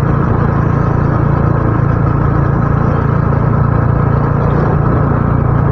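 Motorcycle engine running at a steady cruise, with wind and road noise on the microphone. The engine note holds an even pitch with no change in throttle.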